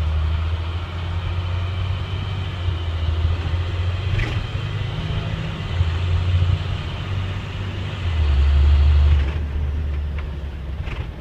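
Diesel school bus engine rumbling, heard from the driver's seat while the bus drives along. It swells about eight seconds in, then eases off and quietens toward the end.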